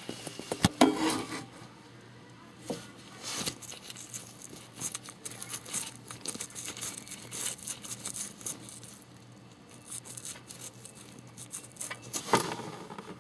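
Irregular light ticks and rubbing as engine oil drains from a tipped lawnmower's drain hole into a drain pan near the end of draining, with a few sharp knocks in the first few seconds and again near the end.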